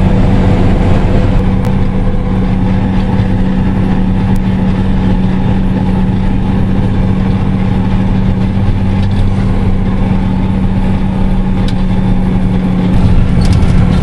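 Fendt 820 tractor's diesel engine running steadily with a droning hum, heard from inside the cab. About a second before the end it grows louder and deeper.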